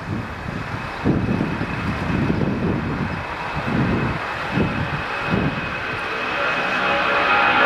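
Lockheed C-5A Galaxy's four General Electric TF39 turbofans at takeoff power as the jet lifts off and climbs out: a heavy, crackling rumble that pulses in waves, with a steady high whine over it.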